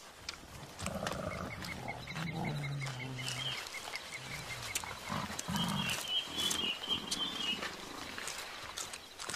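Mountain gorillas grunting and rumbling in low, drawn-out vocalizations, with a faint fine ticking about five times a second in the background for the first half.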